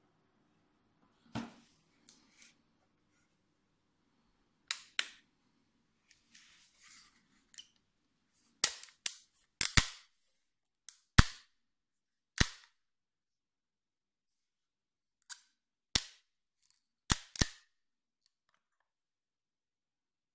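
Sharp plastic clicks and snaps, about a dozen and several in quick pairs, as a rechargeable magnetic LED work light is handled. Faint rustling of the packaging comes first.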